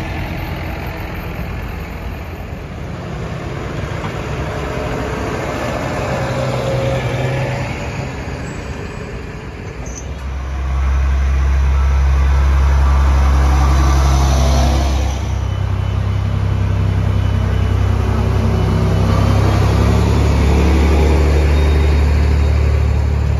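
Diesel farm tractors towing carnival floats drive slowly past, their engines running steadily. The engine sound gets much louder and deeper from about ten seconds in, as a tractor and float come close.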